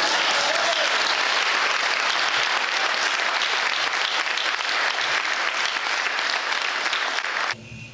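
Audience applauding steadily, cutting off suddenly near the end.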